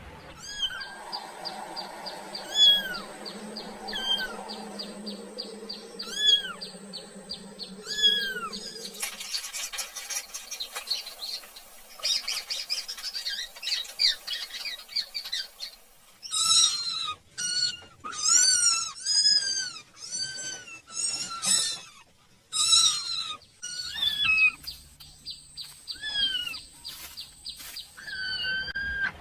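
High-pitched young-animal cries, each one rising then falling. They come about every two seconds at first, then rapidly and loudly for several seconds past the middle, then sparser again.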